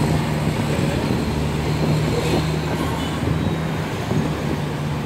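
A steady low engine hum, a few constant deep tones, over an even noisy rumble.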